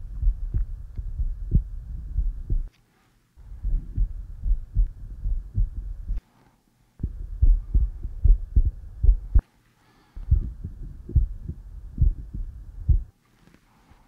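Human heart sounds recorded through an electronic stethoscope: repeated lub-dub beats with a faint hiss behind them. They come in four short recordings with brief silent cuts between them, one each for the aortic, pulmonic, tricuspid and mitral listening areas of the chest.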